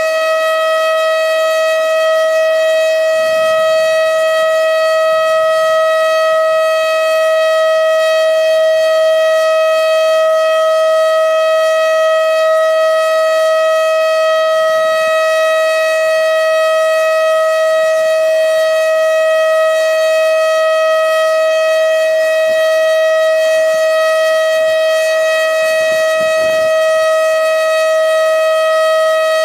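Federal Signal STH-10B rotating outdoor warning siren sounding its Alert signal: a single loud, steady tone held at constant pitch, with no rise and fall.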